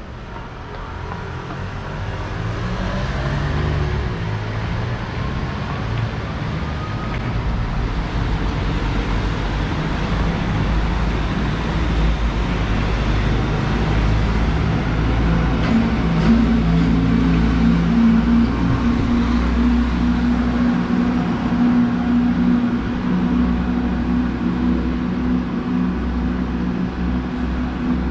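Road traffic on a city street: cars and vans driving past close by with a continuous low engine rumble. A steady low engine drone sets in about halfway through.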